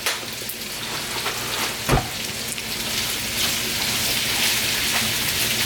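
Squash, garlic and freshly added tomatoes sizzling in olive oil in a frying pan, a steady hiss that grows louder, with a sharp knock about two seconds in.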